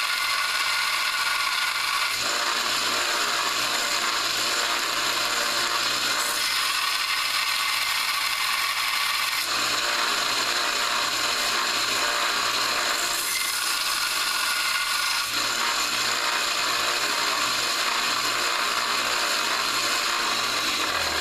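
Harbor Freight belt sander running while a coil-spring steel chisel is ground against the belt to sharpen its bevel. The steady motor hum sits under the grinding, which changes every few seconds as the steel is pressed on and lifted off.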